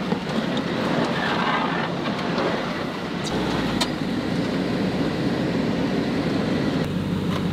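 Pickup truck driving across rough ground, steady engine and tyre noise heard from inside the cab.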